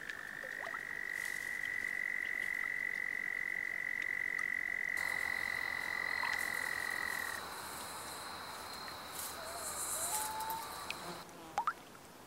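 Animal chorus: one long trill holding a single high pitch for about seven seconds, joined about five seconds in by a higher steady trill that stops near the end, with a few short chirps.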